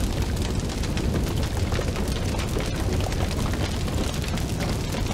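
Fire sound effect: a steady low rumble of flames with dense crackling.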